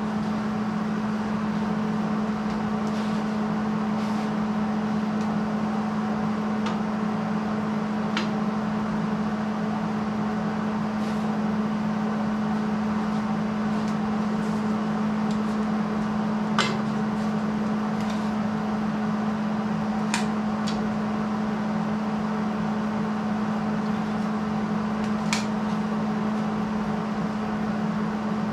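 Steady electrical hum and buzz of shop equipment and a heater, with a few sharp metal clinks spread through it as steel pieces and magnets are handled.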